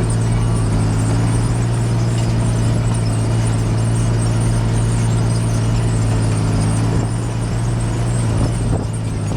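John Deere 8410 tractor's six-cylinder diesel engine running steadily under load, a constant deep drone with a faint high whine over it, easing slightly for a moment near the end.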